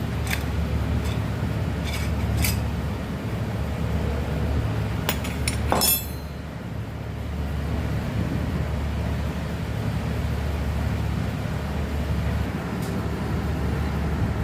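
Several light metallic clinks and taps of metal tools and small engine parts being handled, the loudest a ringing clink about six seconds in, over a steady low hum.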